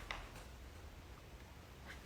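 Quiet room tone: a faint steady low hum and hiss with no distinct sound.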